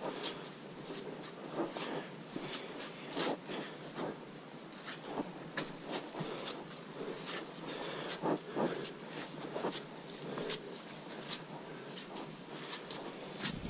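Footsteps of hikers in boots on a muddy, leaf-strewn forest trail: irregular crunching and squelching footfalls, about one or two a second, over a steady background hiss.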